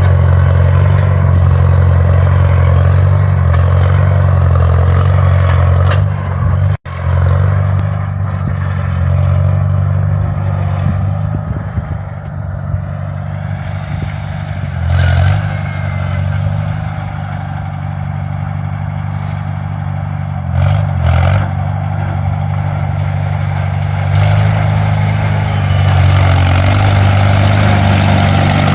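International 140 tractor's engine running steadily, with a few brief surges in engine note and a short break about seven seconds in.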